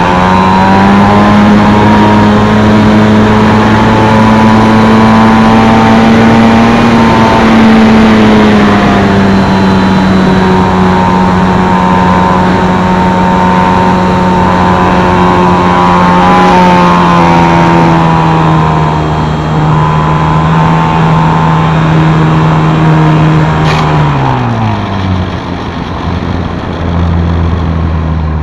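Multiplex FunCub RC plane's electric motor and propeller running at high throttle at a steady pitch, heard from a camera on the wing with air rushing past. About 24 seconds in the pitch falls quickly as the throttle is pulled back, leaving a lower hum and the wind.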